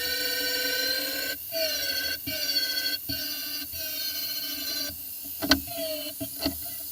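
High-speed abrasive grinding tool whining as it works steel, broken by brief pauses, with a couple of sharp metal knocks near the end.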